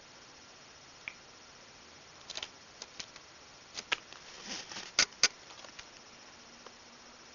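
A pet making a scattering of small clicks and ticks, with a short high chirp about a second in and two sharper clicks about five seconds in.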